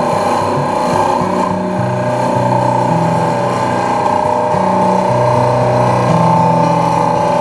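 Background music with a low bass line that changes note every second or so over steady held tones.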